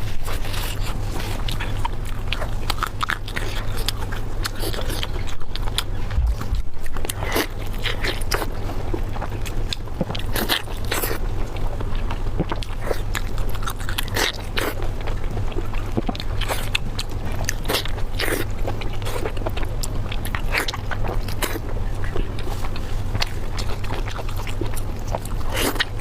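Close-miked eating sounds: irregular biting, chewing and mouth clicks, with short crunches and scrapes, over a steady low hum.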